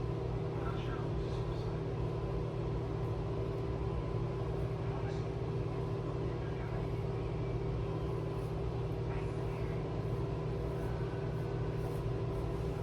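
A steady machine hum at an even level, with a few faint, brief light sounds over it.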